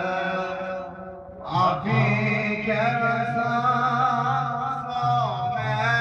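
Male voice chanting a devotional hymn in a slow, melismatic style, with long held notes. The chant breaks off briefly about a second in and comes back louder, sliding down to a lower note near the end.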